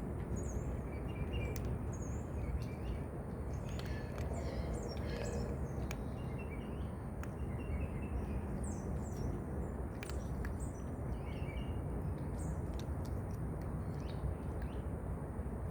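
Outdoor ambience: a steady low rumble with scattered short bird chirps and a few faint clicks.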